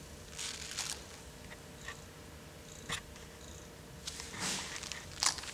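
Domestic cat purring steadily, with a few brief rustles from the paper hat shifting on its head, about half a second in and again past four seconds, and a sharp click near the end.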